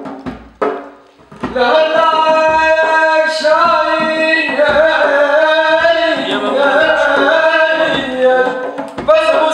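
A few hand-drum strikes, then from about a second and a half in a man sings long, held, wavering notes with little or no accompaniment. Drum strikes come in again near the end.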